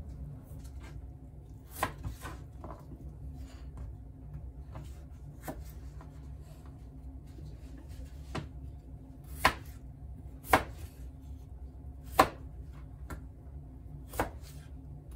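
Kitchen knife chopping through potatoes and knocking on a plastic cutting board: about nine separate sharp chops, irregularly spaced, with a longer gap in the middle while the next potato is fetched. A steady low hum runs underneath.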